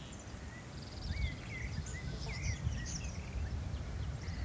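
Small birds calling around a wetland: short chirps and wavering whistled notes with a brief fast trill, over a steady low rumble.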